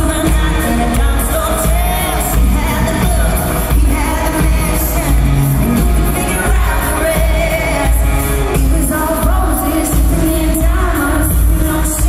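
Live pop-country band with a female lead vocal, played loud over an arena PA and heard from high in the stands, with heavy bass and a steady beat.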